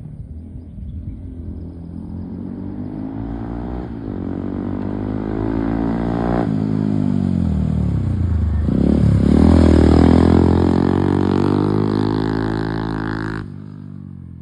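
Modified car with an aftermarket Akrapovic exhaust accelerating past, its engine note rising in pitch and building to its loudest about ten seconds in, then cutting off suddenly near the end.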